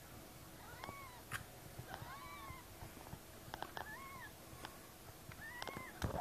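Newborn kittens mewing: four short, thin calls, each rising and then falling in pitch, with a few faint clicks between them.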